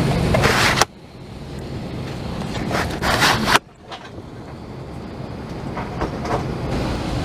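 Airliner cabin noise on the ground during boarding: a steady rush of air with louder rustling passes. It cuts off suddenly twice, about a second in and about halfway through, and each time slowly builds back up.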